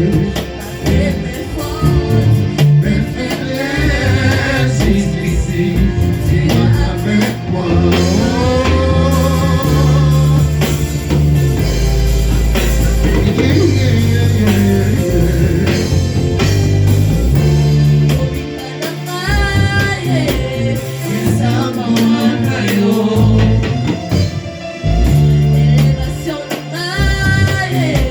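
Church worship song: a singing voice over band accompaniment with a heavy bass line.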